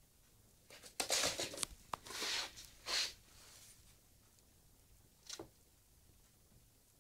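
A pet rabbit scuffling about the room: a handful of short scratchy rustles, a quick cluster about a second in, two more around two and three seconds, and a brief one past five seconds, with quiet in between.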